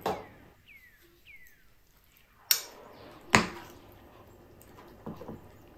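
Metal serving tongs clinking and tapping against a glass bowl and a plate in sharp, separate knocks: one at the start, a loud pair about two and a half and three seconds in, and softer taps near the end.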